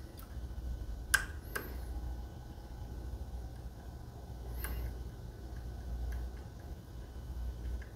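Small metallic clicks of a lock pick and tension wrench working the pins of a Medeco lock cylinder: a sharp click about a second in, a second soon after and another near five seconds, with faint ticks later. A steady low hum runs underneath.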